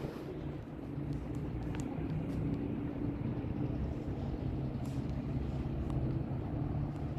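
A motor running steadily with a low hum, a few faint clicks over it.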